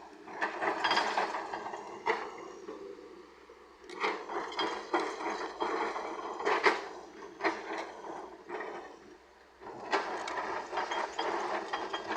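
Earthmoving machinery working murram, with rattling metal clanks and scraping in three spells separated by short lulls.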